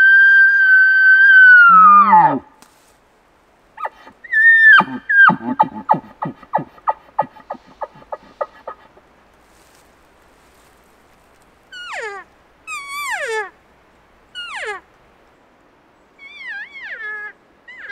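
Elk calls blown by the hunters: a long high bugle that holds its pitch and then breaks and drops off, then a second bugle ending in a run of grunting chuckles that die away. After a pause come a series of short, sharply falling cow-elk mews.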